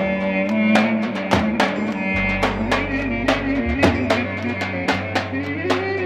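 Roman havası dance music: drums strike a steady quick beat under a sustained melody line that slides up and down in pitch.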